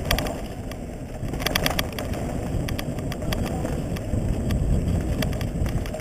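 Mountain bike rolling fast down a dirt trail, heard from a camera on the rider: a steady low rumble of wind buffeting the microphone and tyres on the dirt. A short run of rapid clicking and rattling comes about a second and a half in.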